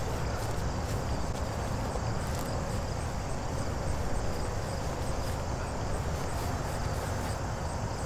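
Steady low wind noise buffeting the microphone, with insects chirping faintly in the background.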